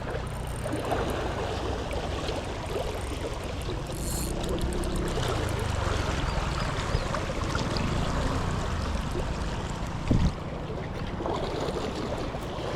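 Water rushing or sloshing steadily, with a low rumble underneath and a single sharp knock about ten seconds in.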